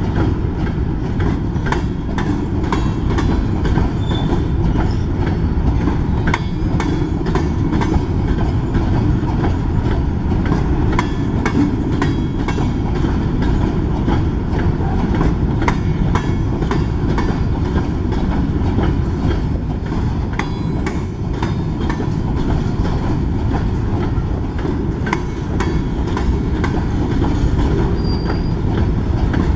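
Freight train of BNSF covered hopper cars rolling past: a steady rumble of steel wheels on rail with frequent clicks as wheels cross rail joints, and a brief faint wheel squeal now and then.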